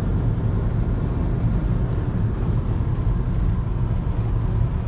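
Car cruising at highway speed, heard from inside the cabin: a steady low rumble of tyres and engine.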